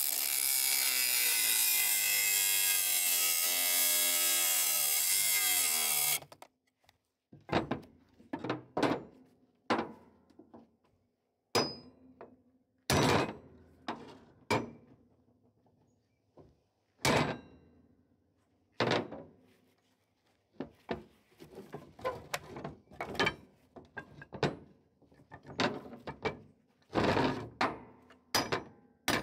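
Cordless angle grinder with a cut-off wheel cutting through a steel hitch bar, its pitch sagging slightly under load, then stopping abruptly about six seconds in. After that, a long run of irregular hammer blows on the steel hitch and vise, coming more thickly near the end.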